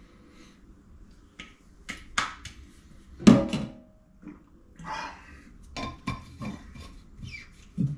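Kitchenware clattering at a sink: a string of clinks and knocks as containers and dishes are set down and handled, with the loudest knock about three seconds in.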